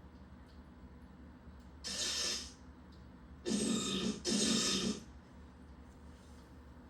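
Star Trek weapon sound effects played through a small built-in speaker: three short hissing bursts, one about two seconds in and two back to back a little later.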